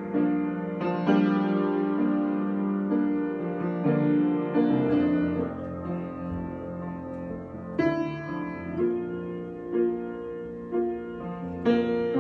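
Improvised solo keyboard music in a piano sound: slow, sustained chords, with new chords struck about once a second in the second half.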